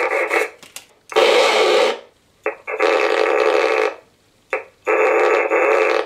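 Amplified scratchy rasping picked up by a salvaged smoke-alarm piezo transducer wired to an audio amplifier, as sandpaper is rubbed along its edge. There are about four strokes of roughly a second each, with a couple of brief scrapes between them.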